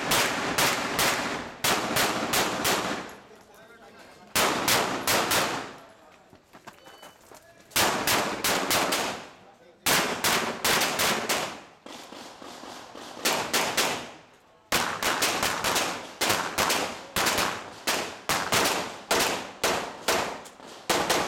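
A Glock 17 Open-division 9 mm pistol fired in rapid strings of shots, separated by gaps of one to two seconds. The longest and fastest string comes near the end, at about three to four shots a second.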